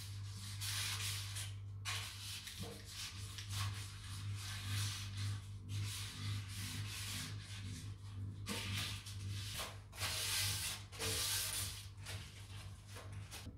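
Inside of a nonstick baking pan being greased by hand with butter: repeated scraping, rubbing strokes, over a steady low hum.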